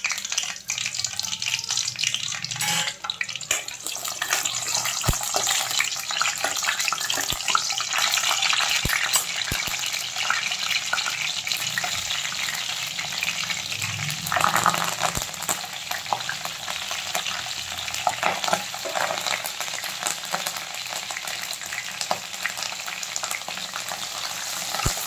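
Green chillies, curry leaves and coriander frying in hot oil in an aluminium kadhai: a steady crackling sizzle with a louder surge about halfway through, and a metal spatula stirring in the pan.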